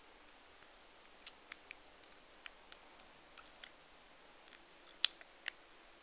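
Scattered small metallic clicks from a lock pick working the pins of a five-pin Union brass padlock during single-pin picking, with two sharper clicks about five seconds in.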